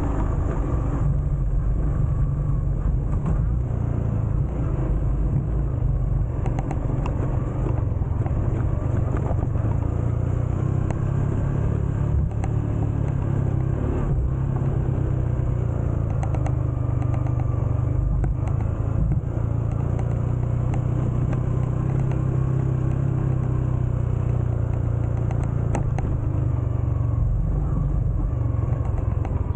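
A motor vehicle running steadily while on the move, heard on board: a constant low engine drone with road and wind noise, and light knocks from time to time.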